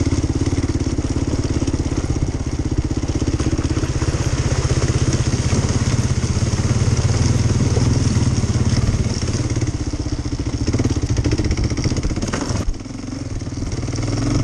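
Motorcycle engine running steadily on throttle, then dropping off suddenly about twelve and a half seconds in.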